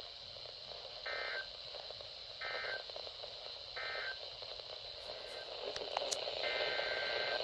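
Weather-radio receiver sounding NOAA SAME digital data bursts over steady radio hiss: three short buzzy two-tone bursts about a second apart, the length of an end-of-message (NNNN) code. A few clicks follow, then a longer burst of the same tones begins near the end, like the start of the next alert's header.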